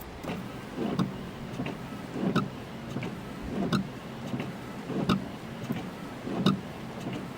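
Car windscreen wipers sweeping at a steady pace, a stroke about every second and a half, each ending in a low thud with a short tick, heard from inside the car over steady rain on the glass and roof.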